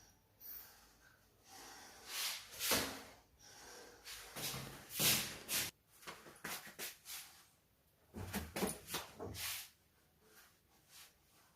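A run of sneezes and snorts: short, sharp bursts of breath, the biggest about two and a half and five seconds in, then a quick string of smaller ones until about nine and a half seconds in.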